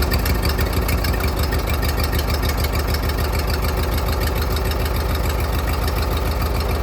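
Briggs & Stratton 16.5 hp twin-cylinder riding mower engine running steadily just after starting, with a fast, even firing pulse. Shortly after, the owner remarked that it sounded like it was only firing on one cylinder for a second.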